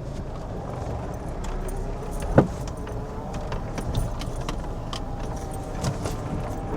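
Keys jangling and clicking in a hand, scattered light clinks over a steady low rumble, with one sharp knock about two and a half seconds in.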